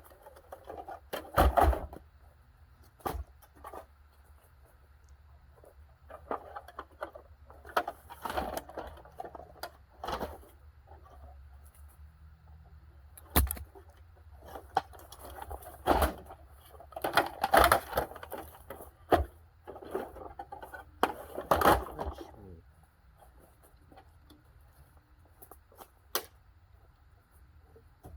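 Irregular knocks, clatters and scraping as the parts of a dehumidifier are handled and pulled apart, with a busy stretch in the middle and quieter gaps near the start and end. A steady low hum runs underneath.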